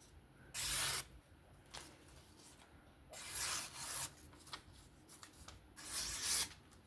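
A QSP Penguin folding knife's blade being stropped: about four swishing passes along the strop, each about half a second long and set irregularly a second or more apart, to fine-tune an edge that is already sharp.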